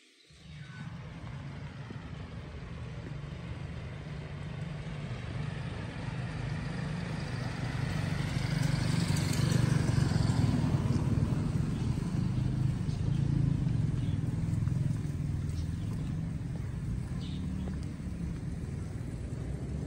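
A car passing along the street: its engine and tyre noise build to a peak about halfway through and then fade, over a steady low rumble.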